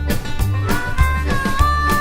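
Background music with a steady beat, in an upbeat swing/blues style with bass and guitar, and a sustained melody line coming in under a second in.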